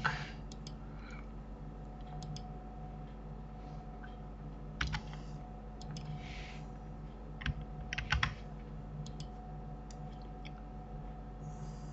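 Scattered clicks of computer keyboard keys and mouse buttons, singly or in quick little clusters with pauses between, over a faint steady hum.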